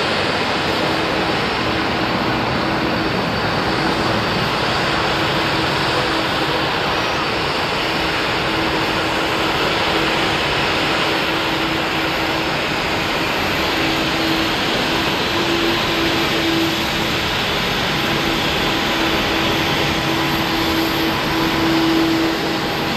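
Boeing 787 Dreamliner's Rolls-Royce Trent 1000 turbofan engines running at taxi power: a steady jet roar with a low drone held on one pitch.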